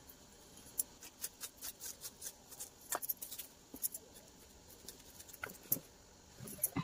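An onion being peeled and cut by hand: irregular small crisp clicks and crackles of dry skin and knife. A few handling knocks on the camera near the end.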